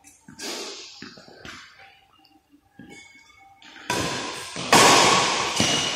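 Badminton doubles rally on an indoor court: a few sharp racket-on-shuttlecock hits and footfalls, and short shoe squeaks on the court mat. A loud rush of noise starts about four seconds in.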